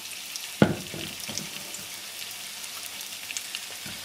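Sliced potatoes sizzling in hot onion fat in a frying pan: a steady hiss with scattered small crackles. A single sharp knock comes about half a second in.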